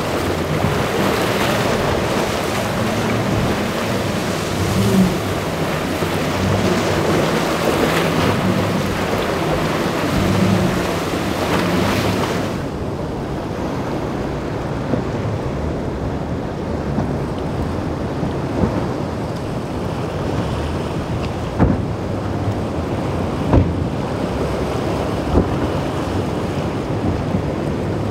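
Boat engines running through rough surf, with waves crashing and wind buffeting the microphone. About twelve seconds in, the hiss of breaking water drops away abruptly, leaving a steadier engine hum over the water with a few sharp knocks.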